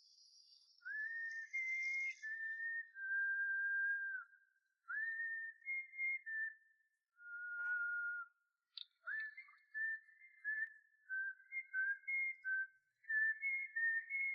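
A whistled tune: one clear pitch stepping from note to note in short phrases, many notes starting with a quick upward slide, with brief pauses between phrases. There are a couple of faint clicks about halfway through.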